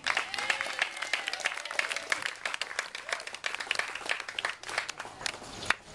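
A group of guests applauding, dense irregular clapping with a few voices calling out among the claps.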